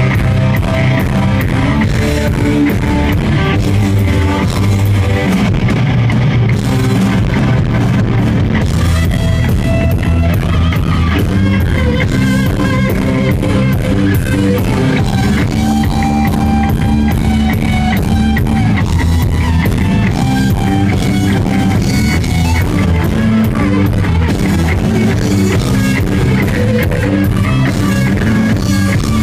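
Rock band playing a song: electric guitars, bass guitar and drum kit together, loud and steady.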